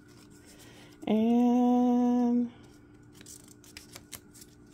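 A woman humming one steady note, about a second and a half long, followed by a few faint clicks.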